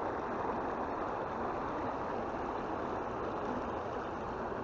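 River water rushing steadily over a concrete ford.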